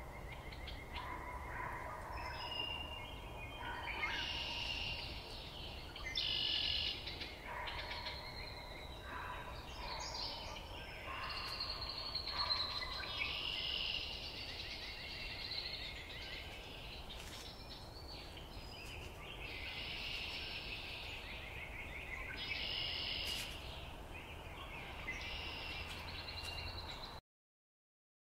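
Several songbirds singing at once, short chirped and trilled phrases overlapping one another, over a steady low rumble. The recording cuts off suddenly near the end.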